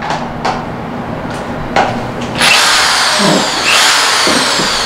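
Ingco 650 W corded impact drill run free in reverse with no bit fitted. A few light clicks come first, then about two and a half seconds in the motor starts suddenly with a high whine that falls in pitch as it slows. It is triggered again about a second later and winds down once more.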